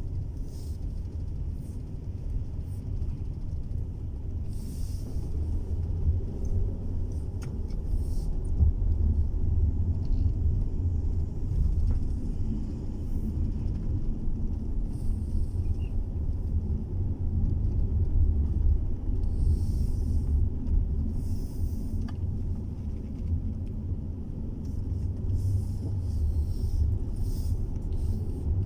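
Road noise inside a moving car: a steady low rumble of engine and tyres, with brief higher hissing swells every few seconds.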